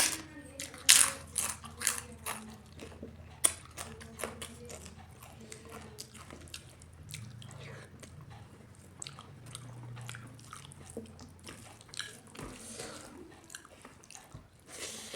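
Close-miked eating: loud crisp bites and crunches in the first few seconds, then quieter chewing and wet mouth sounds with scattered clicks.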